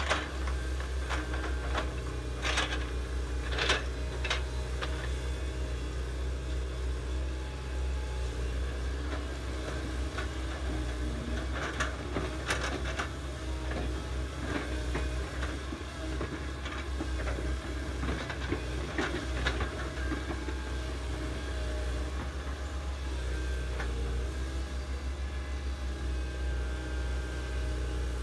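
Crawler excavators digging a ditch, a Komatsu the nearest: diesel engines running steadily, with scattered sharp metallic clanks, several in the first five seconds and more around twelve and nineteen seconds in.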